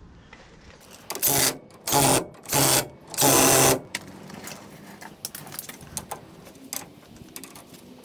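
Impact wrench running in four short bursts as it drives the 17 mm bolts that fasten a brake adapter to a car's front spindle. After that come light metallic clicks as the bolts are checked with a hand wrench.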